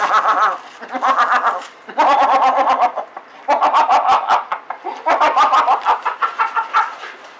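A man making rapid, pulsed clucking noises like a chicken, in about five bursts of a second or so each.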